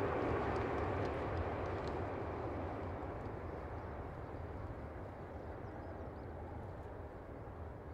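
Jet engine noise from a Boeing 747-400 freighter as it touches down and rolls out, a steady rumble that fades gradually as the aircraft moves away.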